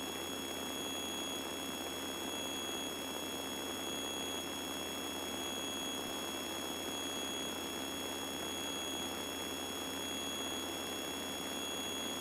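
Faint steady electrical hum and high whine on the cockpit intercom audio feed. Several fixed high tones sound together, and one of them pulses on and off about every second and a half.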